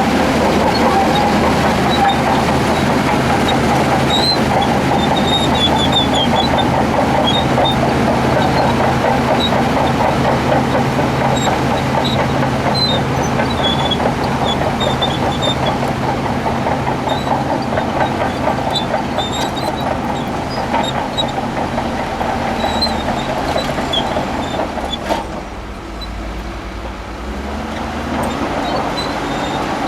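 Crawler bulldozer's diesel engine running under load, with squeaks and clanks from its steel tracks. About 25 seconds in the engine drops off, then revs back up near the end.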